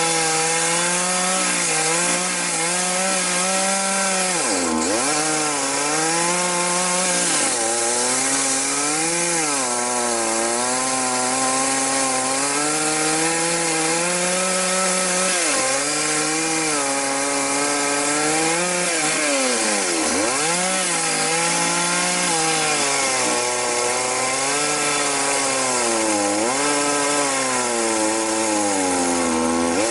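A chainsaw runs at high revs while ripping a log lengthwise along the grain. Its engine pitch sags under the load several times, most deeply about 5 and 20 seconds in, and climbs back each time.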